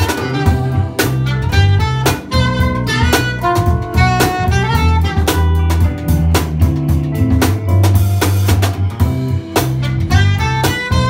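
Live jazz band playing: a hollow-body electric guitar carries the melodic lines over a drum kit with frequent snare rimshots and bass drum, electric bass and keyboards.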